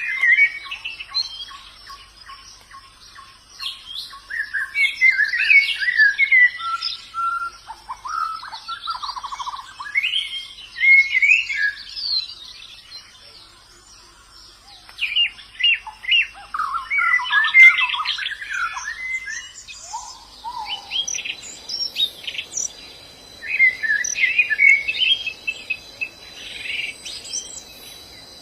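White-eyes (pleci) singing: bursts of quick, twittering song phrases a few seconds long, with a short lull about halfway through. A faint steady high-pitched tone runs underneath.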